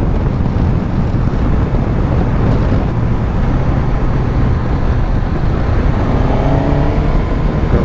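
Suzuki GSX-S1000GT's inline-four engine running while under way, mixed with wind rush, picked up by a microphone inside the rider's helmet. Near the end the engine note climbs as the bike accelerates.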